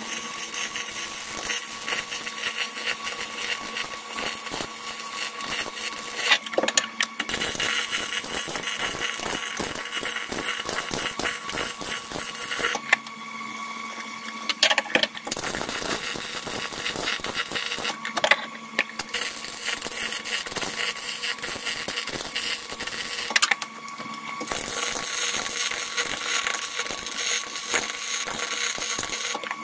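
Wire-feed welder's arc crackling steadily while welding steel repair pieces into a rusted car floor. It runs in about five welds of a few seconds each, with short pauses and a sharp pop at some starts.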